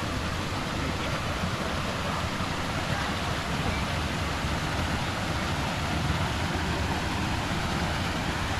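Waterfall rushing down a rocky cascade: a steady, even roar of water.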